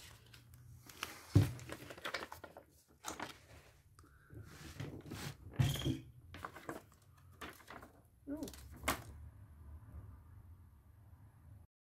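Paper posters and a cardboard box set being handled: irregular rustles and crinkles of paper, with a dull thump about a second and a half in.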